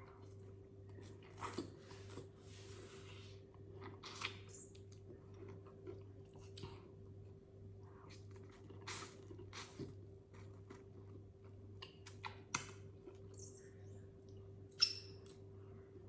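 Chewing with scattered short cracks and clicks of a seafood boil being broken apart and eaten, the loudest crack near the end.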